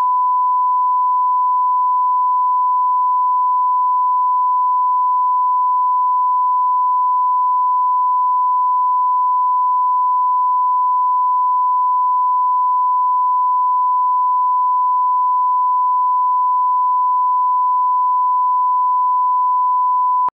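1 kHz line-up tone that accompanies SMPTE colour bars, used as a reference for setting audio levels: one steady, unwavering pure beep at a constant loudness, cutting off suddenly at the end.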